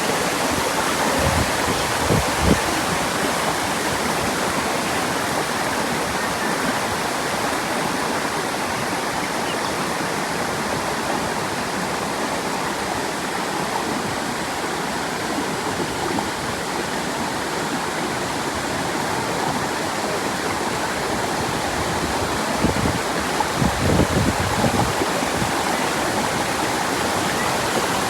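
Steady rushing water, like a stream or waterfall, with a few brief low bumps about two seconds in and again near the end.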